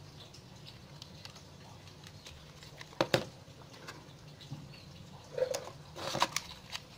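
Magazine of a toy gel-ball blaster being handled: two sharp clicks about three seconds in, then a cluster of clicks and rattles near the end.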